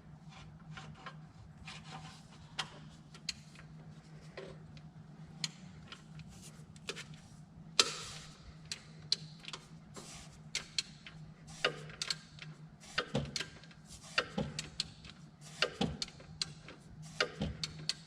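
Ratchet wrench clicking in irregular runs as a 12 mm bolt on the alternator's mounting is loosened, with sharper knocks of the tool on metal, the sharpest about eight seconds in. A steady low hum runs underneath.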